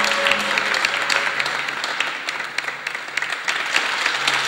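Audience applauding, the clapping thinning a little in the middle and picking up again near the end.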